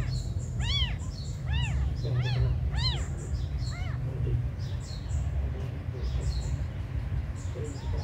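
Very young kittens mewing: a string of short, high cries that rise and fall in pitch, about seven in the first four seconds, fainter and fewer after that.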